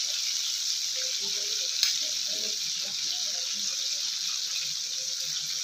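Crumb-coated chicken fillets frying in hot oil in a pan: a steady sizzle, with one light click about two seconds in.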